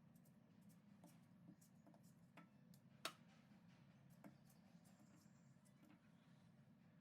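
Near silence: a faint steady low hum with a few small clicks, the clearest about three seconds in.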